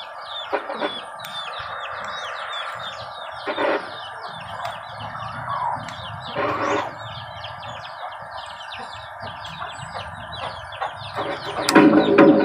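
Chickens clucking with a run of quick, high, falling chicken chirps over a steady background hiss. Loud music comes in near the end.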